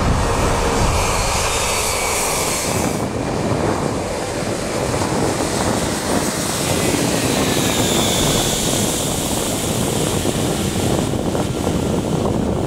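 Steady, loud jet noise from the Antonov An-225 Mriya's six Ivchenko-Progress D-18T turbofan engines, with a faint whine that bends in pitch midway.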